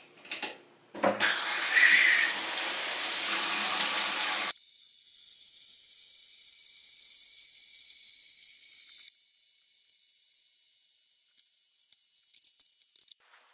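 Bathtub spout running, water pouring into the filling tub. A short knock about a second in, then a loud, even rush of water that abruptly thins to a higher hiss about four and a half seconds in and drops quieter again around nine seconds.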